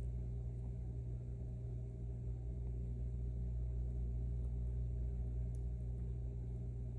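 Steady low electrical hum, with a few faint ticks of a pick scrubbing the sliders of a high-security lock.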